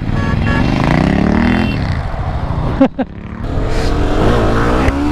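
Motorcycle engine accelerating, its pitch rising, then dropping briefly at a gear change just before three seconds in and rising again.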